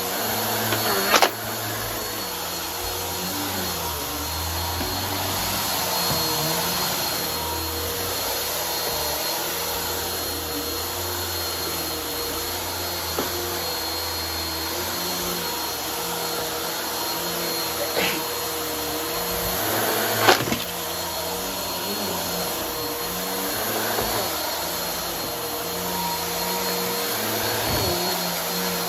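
Vacuum cleaner with a brushroll running steadily with a constant motor whine while it picks up a pile of crunchy debris. It gives a few sharp clicks and cracks as pieces are sucked up: about a second in, and twice more later on.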